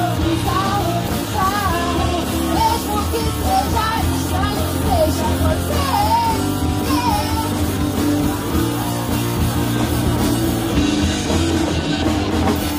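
A live band playing: a woman sings a melody over electric bass, keyboard and a drum kit with cymbals.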